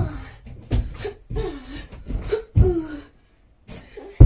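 A boy's short wordless grunts and exclamations, about five in quick succession, as he braces hands and feet against two facing walls. A heavy thump near the end as he drops to the floor.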